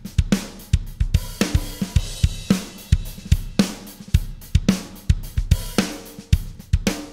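Recorded drum kit groove of kick, snare and cymbals playing in a steady rhythm: Steven Slate SSD5 sampled drums run through a Wes Audio Dione VCA bus compressor, an SSL G-series style unit, with its THD saturation on the medium setting.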